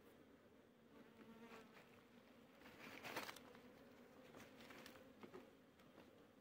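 Faint steady buzzing of a honey bee colony clustered on a wooden hive box, with a louder rustle about three seconds in.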